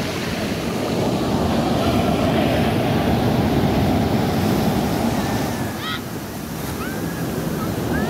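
Rough sea surf: high waves crashing and foaming up the beach in a continuous rush. The surge builds over the first few seconds, eases about six seconds in, and swells again as the next wave breaks near the end.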